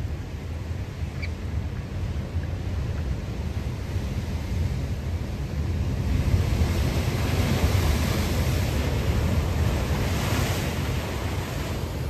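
Ocean surf: waves breaking and washing over a steady low rumble, with one wave swelling from about halfway through and loudest near the end.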